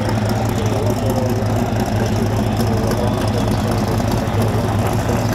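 Twin-turbo Camaro drag car's engine idling with a steady, choppy beat as the car creeps forward.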